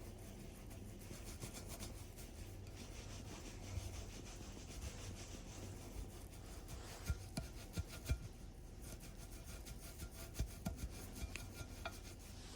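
Soft rubbing at leftover food residue on a dishwasher-cleaned item, with a few light knocks against it; the residue is loose rather than baked on.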